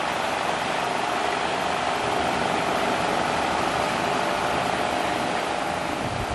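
An engine running steadily at constant speed, a continuous drone with no change in pitch.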